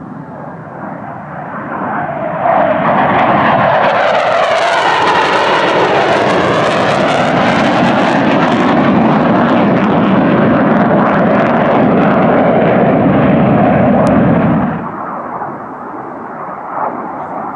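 Panavia Tornado IDS jet in a display pass with afterburners lit, its twin RB199 afterburning turbofans making loud jet noise. The noise builds over the first couple of seconds, holds loud with a sweeping, wavering quality for about twelve seconds, then drops off sharply about fifteen seconds in.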